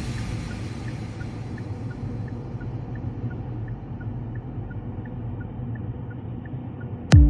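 Steady low rumble of a car's road and engine noise heard inside the cabin, with the faint, even tick-tock of a turn-signal indicator. A music track starts with sharp hits just at the end.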